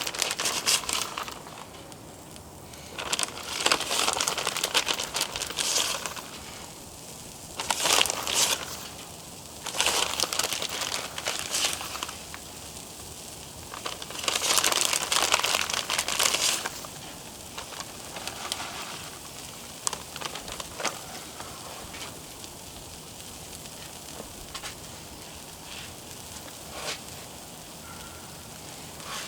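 Cheese and bread crackling on a hot Blackstone flat-top griddle. Several loud bursts of crackle, each lasting one to three seconds, come in the first half, then a quieter hiss with scattered ticks.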